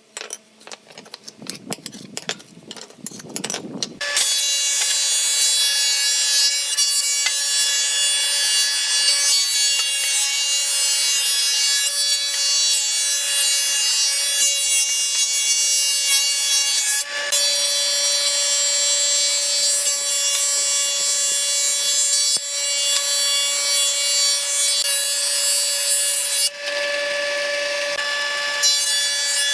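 Electric power tool working wood, running steadily with a whine over rough cutting or sanding noise. It starts about four seconds in, after a few knocks and handling sounds.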